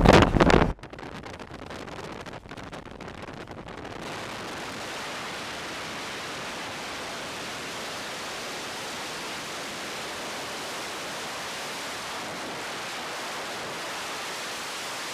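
Loud sound cuts off sharply within the first second, leaving a steady, even hiss with no engine note in it.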